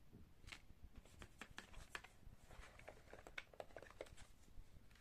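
Faint rustling and light clicks of paper cards and photos being handled and moved about in a cardboard box, a scatter of small irregular taps.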